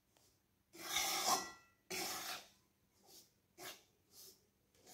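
Spatula scraping and stirring semolina as it roasts in vegetable ghee in a heavy kadhai: a run of short scraping strokes, the first two longer and louder, then shorter, fainter ones about every half second.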